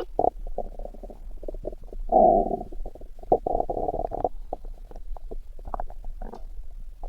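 Human stomach growling and gurgling: a run of short, irregular gurgles, with two longer, louder rumbles about two seconds and three and a half seconds in.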